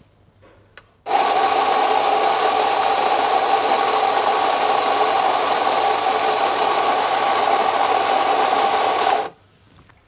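Rancilio electric burr coffee grinder grinding beans: a click, then it starts abruptly about a second in and runs with a steady whirring grind and a strong mid-pitched hum for about eight seconds before cutting off.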